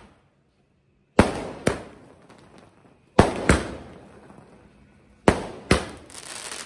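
Aerial fireworks going off: three pairs of sharp bangs about two seconds apart. Each pair is followed by a fading crackle and hiss as the bursts die away.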